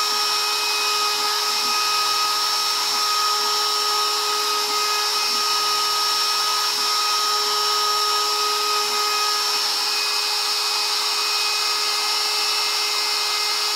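Shapeoko 3 CNC router carving wood: its DeWalt compact router spindle runs at speed with a steady high whine, while the gantry's stepper motors hum in short stop-start moves. The stepper moves stop about two-thirds of the way through as the carving program finishes, leaving the router running on its own.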